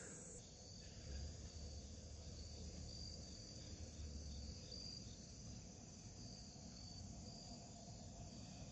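Faint chorus of insects in the grass and trees: a high, evenly pulsing trill that keeps going steadily.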